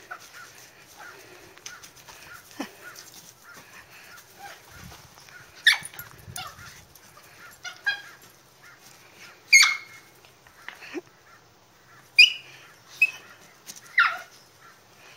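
Small schnoodle dog barking in short, sharp high-pitched yaps, about five of them a couple of seconds apart, while playing with a ball.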